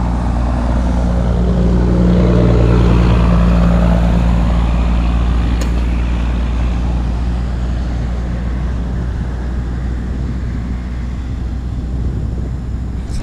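Steady engine drone of a passing motor vehicle with a deep hum. It swells to its loudest a couple of seconds in, then slowly fades.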